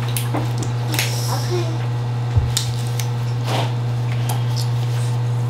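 Cooked crab legs being cracked and pulled apart by gloved hands: a scatter of short, sharp cracks and clicks, with one low thump about two and a half seconds in. A steady low hum runs underneath.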